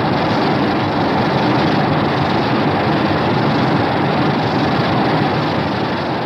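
Kaiju monster sound effect: a long, steady, unpitched rumbling noise that begins to fade near the end.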